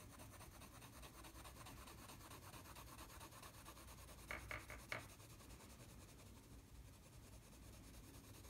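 Faint scratching of a Prismacolor coloured pencil shading back and forth across paper, with a few short sharp ticks a little past halfway.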